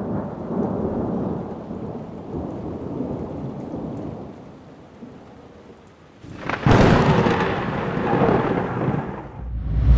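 Thunderstorm: steady rain with low rumbling thunder that slowly dies down, then a sudden loud thunderclap about six and a half seconds in, rumbling on for a few seconds before fading out.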